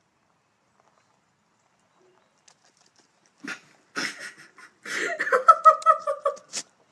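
Near silence for about three seconds, then a few short sounds and a goat's long, wavering bleat about five seconds in.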